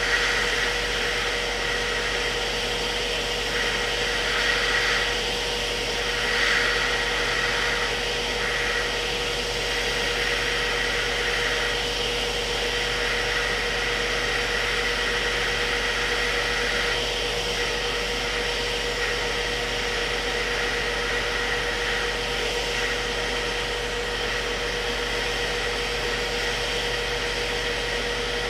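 Hot-air rework station blowing hot air onto a soldered BGA SSD chip, melting its solder to lift it off the motherboard. A steady hiss of air with a constant whine.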